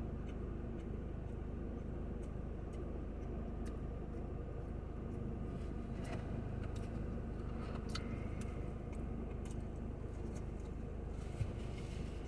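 Steady low background hum with faint scattered clicks and smacks of someone eating, and a soft knock near the end.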